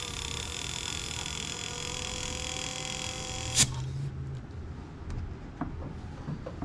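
Compressed air hissing steadily from an air blow gun pressed onto the valve of a Jeep JKU's oil filter housing, with a whistle in the hiss, forcing the oil in the filter back down to the pan. It cuts off with a click about three and a half seconds in, and a few faint taps follow.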